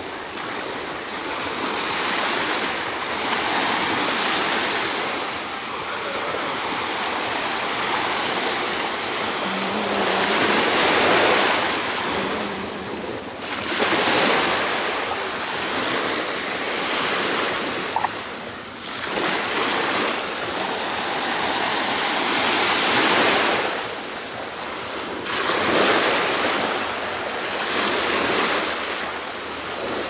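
Small sea waves breaking and washing up the sand at the water's edge, the rushing hiss swelling and fading with each wave every few seconds.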